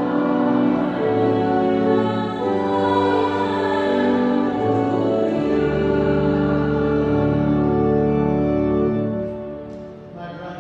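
Church organ playing slow held chords, closing on a long chord with a low bass note that dies away about nine seconds in.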